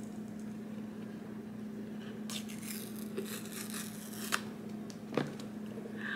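The paper pull-tab seal on an iPhone 15 Pro Max box being torn off: short tearing rips about two and a half and four seconds in, then a light click, over a steady low hum.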